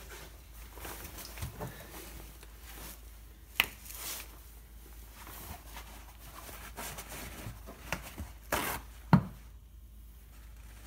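Scattered handling noises of tools and parts: a sharp click about three and a half seconds in, a short rustle near the end, and a loud knock just after it.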